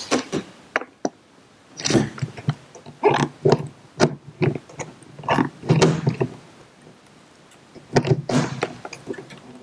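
Hand pop-rivet tool being squeezed to set a blind rivet through an aluminium bracket: about five squeezes a second or two apart, each a short cluster of clicks as the jaws grip and draw the mandrel.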